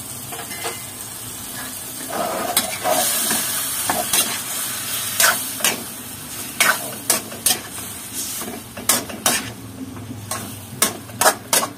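Raw chicken pieces frying in a wok with tomatoes and onions, sizzling as a metal spatula turns them over. The sizzle swells about two seconds in, and from midway the spatula knocks and scrapes against the wok again and again.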